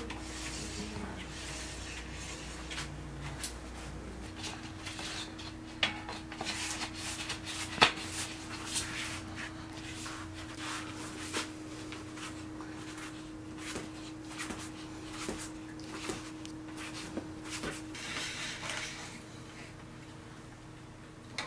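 Scattered light clicks, knocks and rubbing of bicycle parts and tools being handled during a road-bike build, with one sharper knock about eight seconds in, over a steady low hum.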